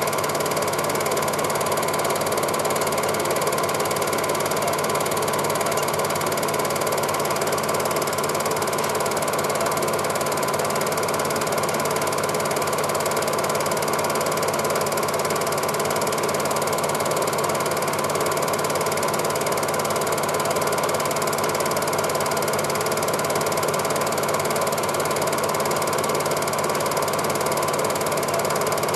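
Film projector mechanism running steadily.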